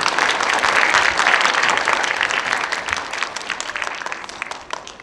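An audience clapping, starting at once, strongest in the first couple of seconds, then dying away toward the end.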